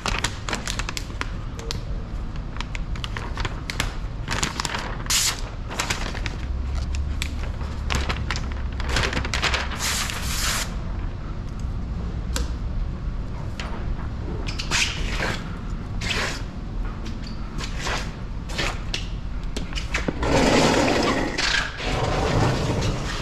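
Sheet of paint protection film being handled and unrolled, its plastic crinkling and rustling in many short irregular crackles over a steady low hum, growing louder about twenty seconds in as the sheet is unrolled.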